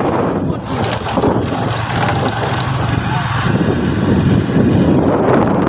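A motor running steadily with a low hum, mixed with heavy wind noise on the microphone.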